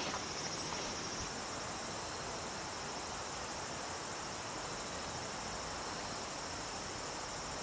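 A steady, high-pitched insect chorus, shrilling without a break over a faint hiss.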